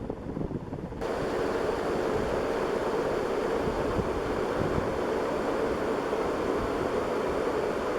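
Early 1980s SMC Laguna 132 cm ceiling fan running at high speed, its blades driving a strong draft that buffets the microphone as a steady rush of wind noise. About a second in, the rush suddenly gets louder and fuller.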